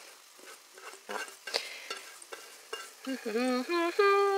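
Chopped onions and garlic tipped and scraped from a metal bowl into an oiled frying pan, with light clatter and sizzling. Near the end a voice makes a few drawn-out, sliding sounds, louder than the frying.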